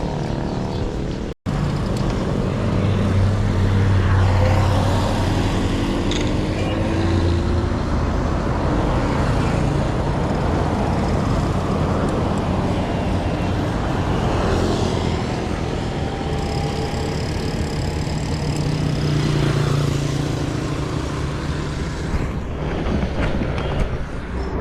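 Road traffic: motor vehicles running and passing close by, their engines humming over steady road noise. The sound drops out for an instant about a second and a half in.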